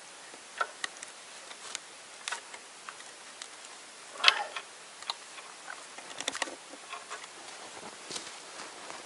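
Irregular clicks, knocks and rustling as hands work inside a wooden trap box on a tree, freeing a caught marten from the trap. There is a louder rattle about four seconds in and a quick run of clicks a little after six seconds.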